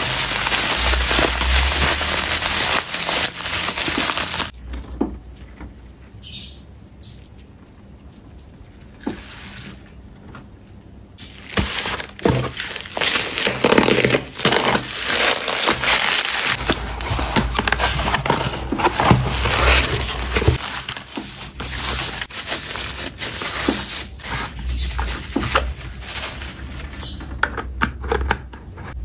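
Bubble-wrap packaging crinkling and crackling as it is handled, unwrapped and cut open. There is a quieter stretch of several seconds in the middle.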